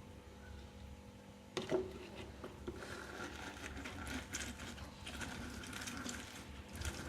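Halved lemons being squeezed on a citrus juicer: a knock about a second and a half in, then a steady grinding, squelching noise with a faint high tone from about three seconds on.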